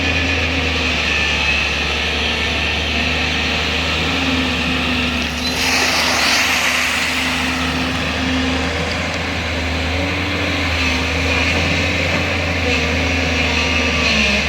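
JCB 205 excavator's diesel engine running steadily as the machine works, its pitch wavering slightly. A rushing noise swells for about two seconds near the middle.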